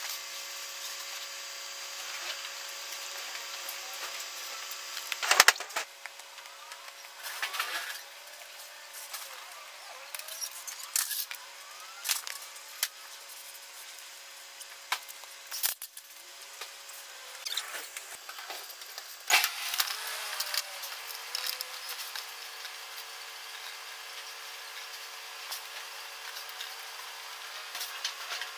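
Warehouse loading noise: a steady mechanical hum under scattered knocks, clanks and scrapes of pallets and cartons being moved. The loudest is a sharp bang about five seconds in.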